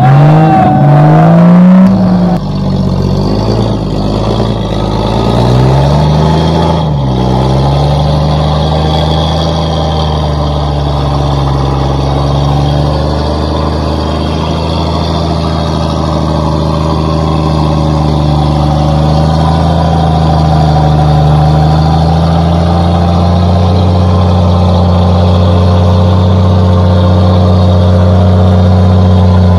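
Off-road 4x4's engine revving up and down a few times in the first several seconds, then running at a steady speed under power.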